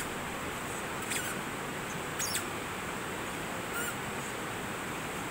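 Rushing river water over rocks, a steady hiss, with a few short high bird chirps about a second in, around two seconds in and near four seconds in.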